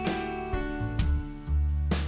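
Background music: guitar-led instrumental track with a steady bass line and a drum hit near the end.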